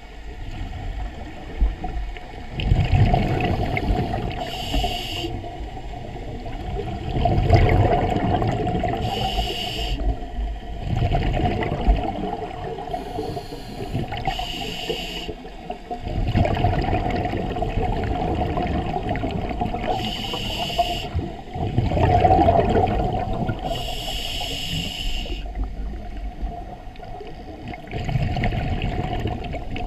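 Scuba diver breathing through a regulator underwater: bubbly, rumbling exhalations alternate with short hissing inhalations, about one breath every five seconds.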